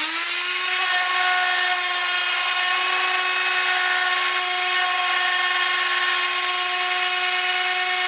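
Electric random orbit sander running at a steady pitch with its pad pressed on an oak leg, sanding it flush with the side rail. Its pitch is still rising slightly just after switch-on, then holds steady.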